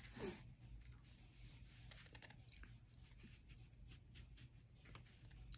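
Near silence with faint, scattered scratches and small ticks of an oil pastel being handled: its paper wrapper peeled and its tip worked on paper.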